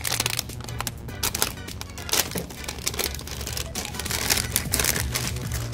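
Plastic blind-bag toy package crinkling and rustling as it is handled and opened.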